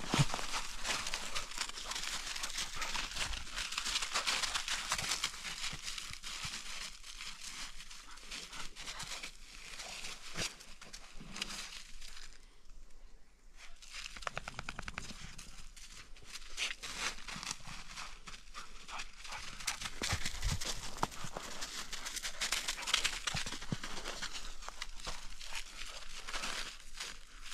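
Footsteps crunching through fresh snow, a steady crackle of small crunches that eases off for a couple of seconds about twelve seconds in.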